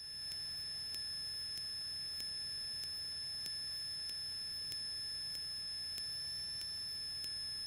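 Steady high-pitched electrical whine on an aircraft intercom audio feed, with faint regular ticking a little under twice a second over a low hiss; the engine is not heard through the direct cable connection.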